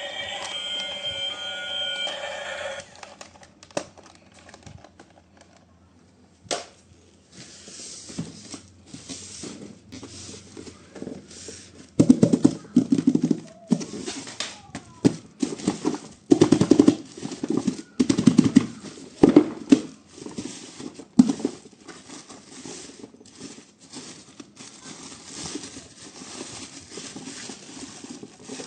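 Handling noise during the unboxing of toys: irregular crinkling, clicks and knocks of packaging, coming in bursts that get louder from about halfway through. A short stretch of music plays at the start.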